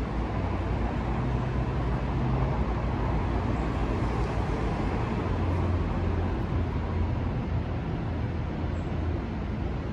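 MARTA rapid-transit train at the far end of the platform, giving a steady low rumble that swells a little midway, mixed with a hiss of wind on the microphone.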